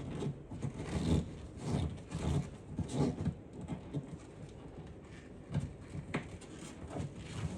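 Irregular rubbing, scuffing and light knocks of parts being handled by hand in a small space, with a sharp click about six seconds in.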